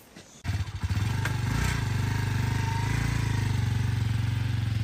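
Small motorcycle engine running at a low, steady speed with a fast, even pulse. It starts suddenly about half a second in.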